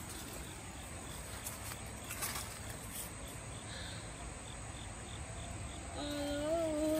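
Faint insect chirping, a regular pulse about three times a second, over a low steady rumble. About a second before the end a person's voice starts a long held note.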